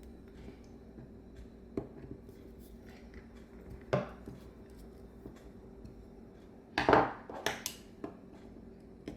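Small metal carburetor parts and hand tools clinking and knocking on a workbench as the carburetor is taken apart: a few scattered clinks, then a louder clatter of several knocks about seven seconds in.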